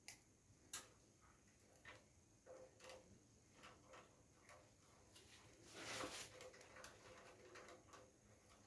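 Faint, scattered clicks and taps of small parts and tools being handled while a water heater is taken apart, with one brief louder scrape about six seconds in.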